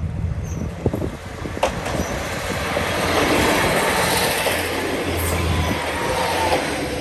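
KiHa 40 diesel railcar passing close by: the diesel engine's low, steady hum under wheel and rail rolling noise that swells to its loudest about halfway through. A few sharp clicks from the wheels over the rail joints come in the first two seconds.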